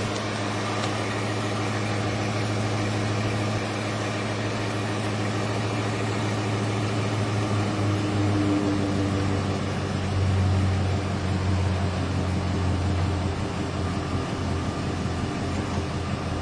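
Ford F-150's 5.4-litre three-valve Triton V8 idling steadily, its exhaust flowing freely from the tailpipe after a wad of aluminum foil stuffed into it has blown out.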